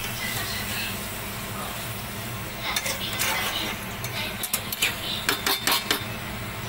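Mutton and potatoes frying in spices in a kadai, sizzling steadily, while a spatula stirs and scrapes against the pan. The scrapes and clacks come in quick runs in the second half.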